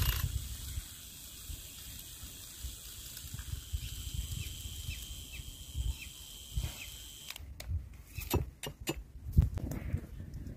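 Small battery-powered handheld frother whirring with a steady high whine as it whips coffee, sugar and water into a froth in a glass mug. The whine cuts off about seven seconds in, and a run of sharp clicks and snaps follows.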